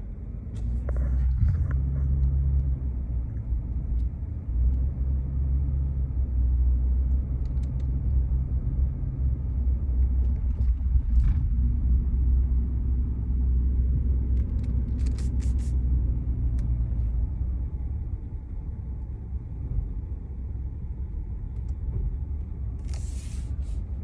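A car driving slowly, heard from inside the cabin: a steady low engine and road rumble that grows louder about a second in and eases off later.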